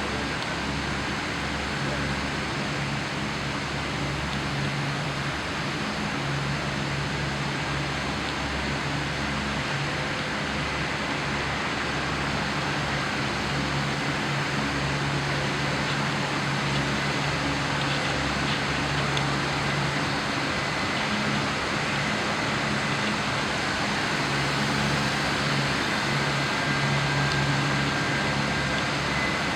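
Steady drone of running machinery: a low hum under an even rushing noise, swelling and easing slightly without stopping.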